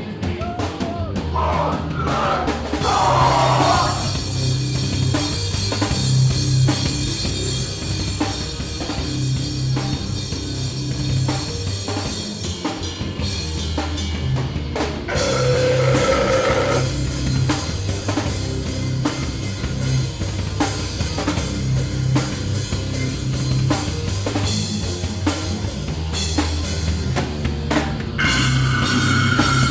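Rock band playing live and loud: a drum kit with bass drum and cymbals driving a steady beat under sustained low instrumental notes, with a few held higher tones coming in about fifteen seconds in and again near the end.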